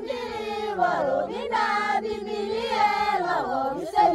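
Group of Maasai women singing together: a low note is held steadily under voices that rise and fall in pitch.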